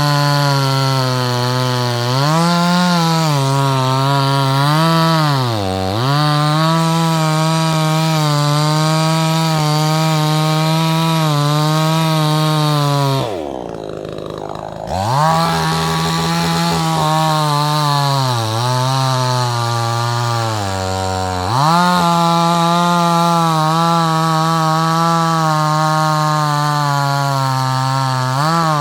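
Two-stroke chainsaw, running on fuel dosed with Lucas Octane Booster, held at high revs while cutting wood. Its pitch sags briefly under load a few times, and about halfway through it drops to a much lower speed for a second or two before revving back up.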